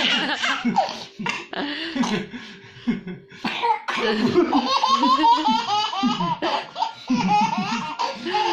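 A young child laughing hard in three long bouts, the laughter breaking into coughs.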